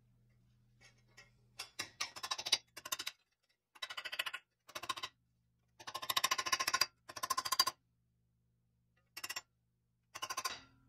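Small ball-peen hammer tapping a thin pressed-steel toy car body part resting on a steel bench vise, in quick runs of light metallic taps, about seven runs separated by short pauses.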